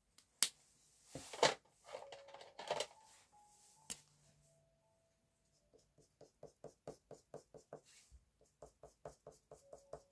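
Felt-tip marker scribbling back and forth on paper, a quick even run of short strokes about three to four a second, as cells of a paper chart are coloured in. Before that, a sharp click, a few seconds of handling noise and another click.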